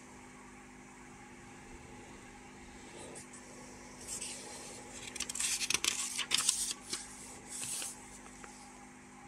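Paper rustling as the pages of an old instruction booklet are handled and turned. It comes as a cluster of short crackly bursts over about four seconds in the middle, over a faint steady hum.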